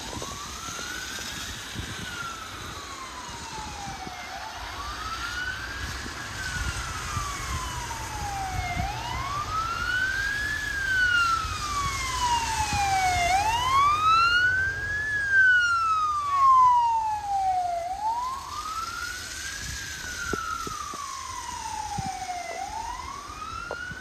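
Motorcade escort siren on a slow wail, about five cycles, each rising quickly and then sliding down over a few seconds. A second, fainter siren wails higher up, over the low rumble of the slow-moving vehicles, which is loudest midway.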